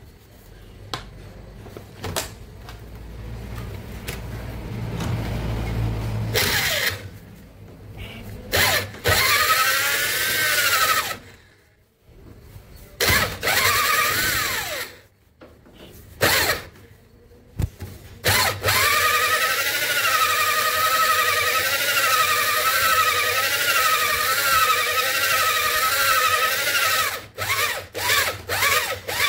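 Electric drill spinning a stone cylinder hone inside a Kirloskar three-cylinder diesel engine's cylinder sleeve, the abrasive stones grinding on the bore to polish it. The drill runs in several short bursts, then for about eight seconds with its whine wavering in pitch, then in quick bursts near the end.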